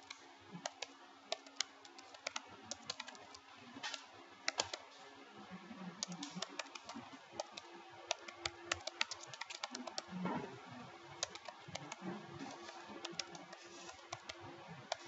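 Typing on a computer keyboard: irregular runs of quick key clicks with short pauses between.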